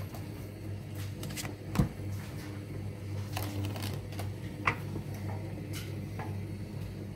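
CCP 650E creasing machine running with a steady low hum, with a few sharp clicks and knocks. The loudest click comes just under two seconds in.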